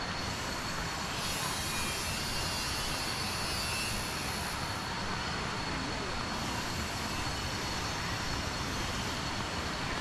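Steady rush of water cascading down the Kuang Si falls, with a high shrill insect buzz that comes in about a second in, drops out near the middle and comes back.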